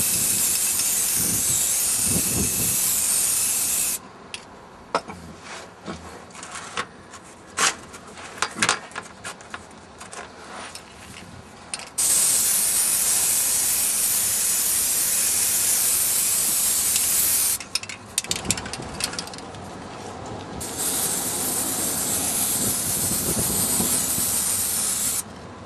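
Aerosol spray-paint can spraying paint onto a car's exhaust pipe in three long, steady hisses: one ending about four seconds in, one in the middle and one near the end. Scattered clicks and knocks come between the bursts.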